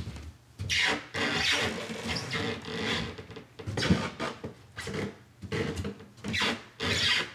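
Plywood subfloor creaking and squeaking under footsteps, in repeated pulses as the weight moves. The squeak comes from a gap between the subfloor and the floor joist beneath, so the subfloor moves and rubs with each step.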